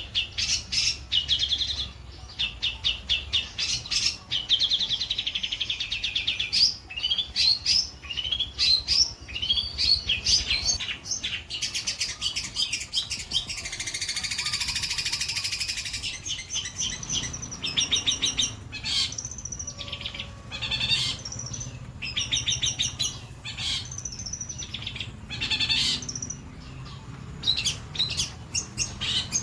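Long-tailed shrike (cendet) singing a long, varied song of rapid chattering trills and quickly repeated notes. About halfway through there is a harsh rasping passage lasting a couple of seconds.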